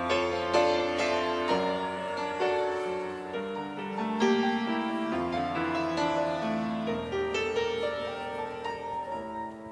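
Piano playing a slow hymn introduction, a melody over sustained chords, dying away near the end.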